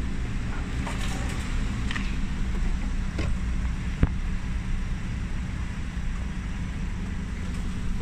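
Steady low hum of an idling car engine, with a single sharp click about four seconds in.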